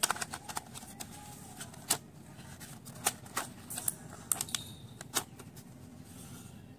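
Small plastic pencil sharpener and the moulded plastic tray of a colour-pencil kit handled, with irregular sharp plastic clicks and taps as the sharpener is pressed into its slot in the tray. The clicking stops a little after five seconds in.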